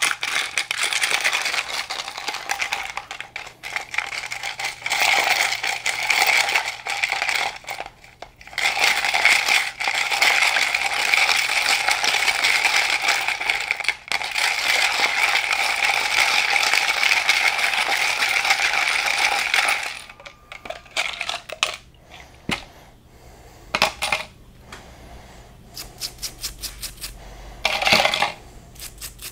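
Small metal differential parts clinking and rattling against each other and the walls of a plastic jar of solvent as they are stirred with a brush. The rattling is dense and steady for about twenty seconds, then thins to scattered clinks, with a quick run of clicks near the end.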